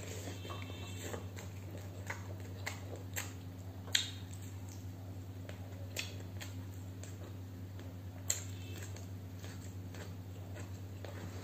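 Close-up eating sounds of rice and curry eaten by hand: chewing and mouth clicks, with scattered sharp clicks that are loudest about four and eight seconds in. A steady low hum runs underneath.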